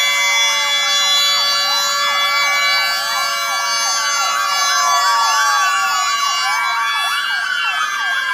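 Several escort vehicles' sirens sounding together, overlapping wails and faster yelps that rise and fall over a steady held tone.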